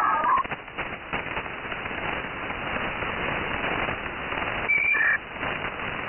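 Shortwave radio in lower sideband: a Brazilian peskie station's swooping whistle tone, drawing a picture on the waterfall, glides down and stops about half a second in. Hiss and crackling static follow, with two short high beeps close together about five seconds in.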